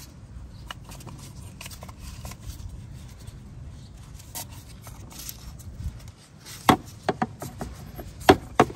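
Faint handling and scraping, then a run of sharp little clicks and taps in the last few seconds. This is a pick working the large rubber O-ring off a plastic oil filter housing cap.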